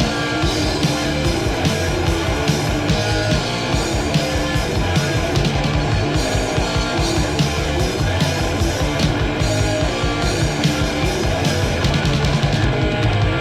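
Heavy metal band playing an instrumental passage from a raw 1980s demo recording: distorted electric guitar, bass and fast, steady drumming, with no vocals.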